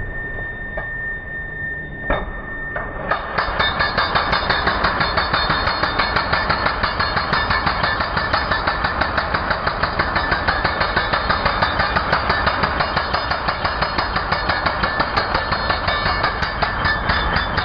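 Electric concrete breaker (Ingco 16 kg demolition hammer) hammering steadily: a fast, even pounding that starts about three seconds in. Before it starts there is a steady hum with a high whine.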